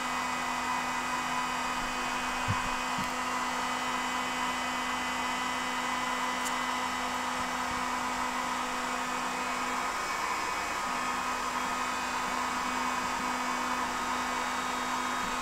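Cooling fan of an ISDT T8 1000 W smart charger running at full speed, a steady whine over a hiss, while the charger delivers its full 30 A charge and has heated to 66 degrees.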